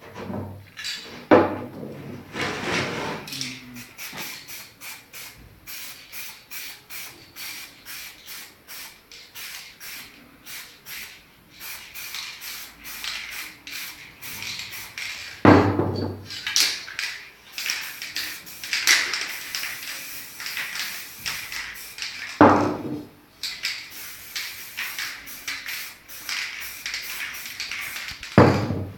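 Aerosol spray paint cans in use: quick, regular short spurts and hisses of spray, about three a second, with longer stretches of hissing. Four heavy knocks come through, near the start, about halfway, and twice near the end.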